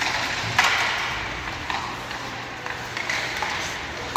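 Ice hockey play echoing in an indoor rink: a series of sharp clacks of sticks and puck, several over a few seconds, the loudest about half a second in.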